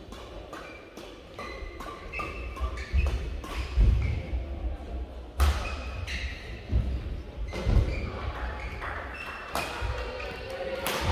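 Badminton rally: rackets smacking the shuttlecock in sharp, irregular strikes, with the players' feet thudding and shoes squeaking on the court mat.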